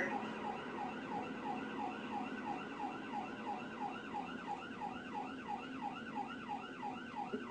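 Police car siren in fast yelp mode, its pitch sweeping up and down about three times a second, heard from inside the cruiser's cabin.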